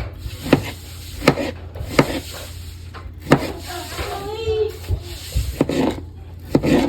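A knife chopping on a wooden cutting board: about six sharp, separate chops, unevenly spaced, with some rubbing of the blade on the wood.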